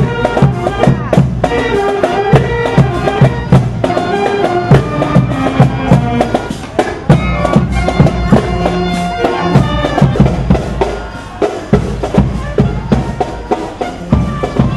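Marching band playing a tune on clarinets and other wind instruments over a steady, regular drumbeat.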